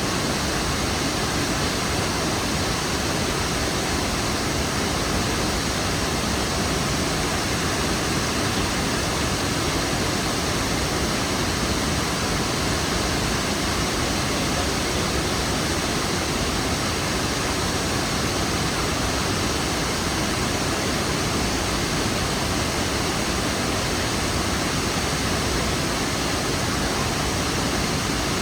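Kravica waterfalls: a steady rush of falling water, an even noise that never changes in level.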